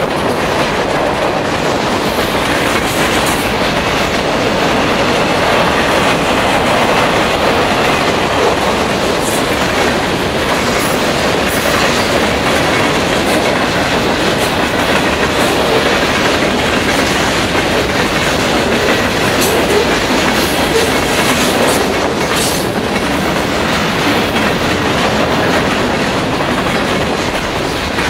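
Freight cars of a passing train rolling steadily by at close range: a continuous rumble and clickety-clack of steel wheels over the rail joints, with a few brief, sharp, high clicks.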